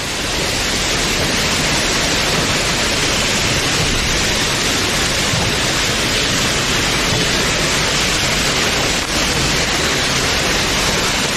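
Heavy rain pouring down: a loud, steady hiss that swells over the first second and then holds even.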